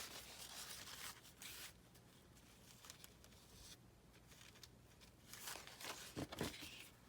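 Faint rustling and tearing of a thin paper napkin, in short spells in the first second or so and again about five to seven seconds in, with near silence between.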